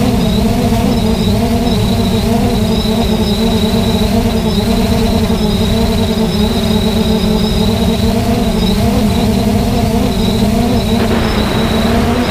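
3DR Solo quadcopter's four electric motors and propellers running steadily in flight, a hum with a thin high whine that wavers slightly in pitch, over low wind rumble on the microphone. A rush of hiss comes in about a second before the end.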